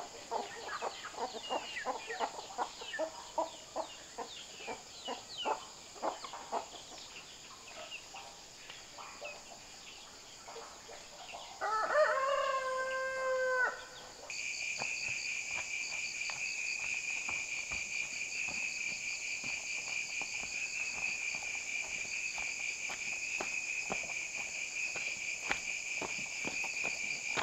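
Free-ranging chickens clucking, and a rooster crowing once about twelve seconds in, for about two seconds. After it, a steady high insect chorus takes over.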